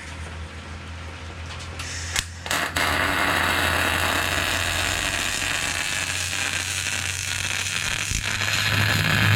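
A steady low electrical hum, joined about three seconds in by a continuous crackling hiss, after two short clicks.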